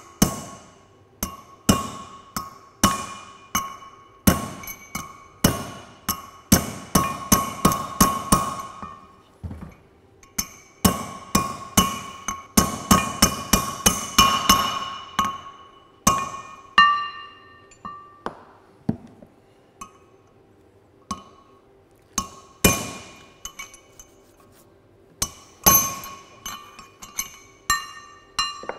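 Hammer tapping a new wheel bearing track into a Land Rover hub through a drift, sharp metallic strikes that each ring with a clear tone. The taps come in quick runs about a quarter and half way through, then more sparsely.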